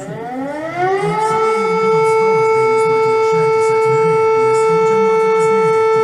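Lithuanian civil defense siren winding up in pitch over about a second, then holding one steady tone, with a fainter wavering tone beneath it.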